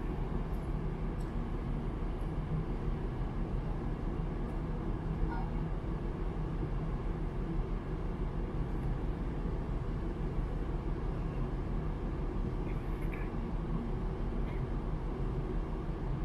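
Steady low drone of a large ferry's machinery, its engines and ventilation, heard on the open deck. A few faint ticks are scattered through it.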